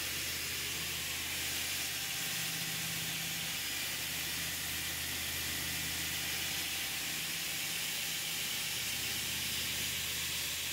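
Homemade belt sander running unloaded on its test run, on freshly machined rollers with sealed bearings. The abrasive belt makes a steady, even hiss over a low motor hum.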